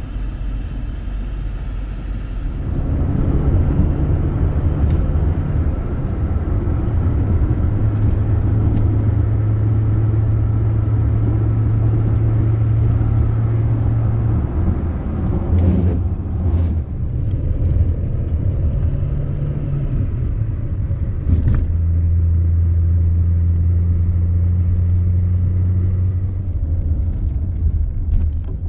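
Steady low drone of a running motor vehicle. Its pitch steps up and down several times, with a couple of brief knocks partway through.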